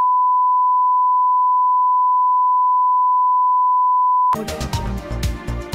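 Steady 1 kHz test tone that goes with the colour-bar test pattern, cutting off suddenly about four seconds in, when music with a steady beat starts.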